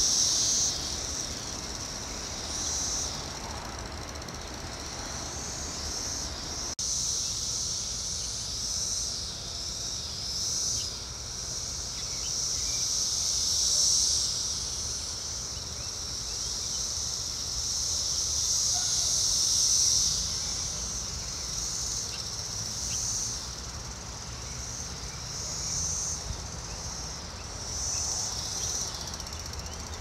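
A chorus of Brood X periodical cicadas: a dense, steady, high-pitched drone that swells and ebbs in slow waves.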